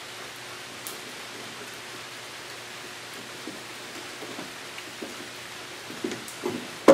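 Steady background hiss with a faint low hum, and a few soft taps and clicks near the end, with one sharp click at the very end, as the pitot tube's electrical leads are handled and connected by hand.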